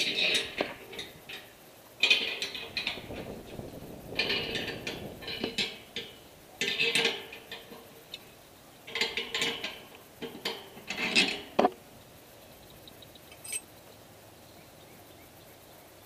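The steel clamp mount of a microwave dish creaking and scraping on its pole as the dish is nudged by hand with its bolts loosened. The creaks come in about six short bursts during the first two-thirds, then stop.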